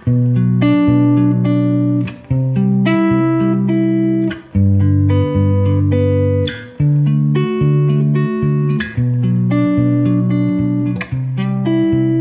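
Clean electric guitar, a Fender Telecaster, fingerpicked one string at a time in an eighth-note feel. It plays three-note skipped-string chords on the sixth, fifth and third strings, moving through a D major, B minor, C major and G major progression. The chord changes about every two seconds.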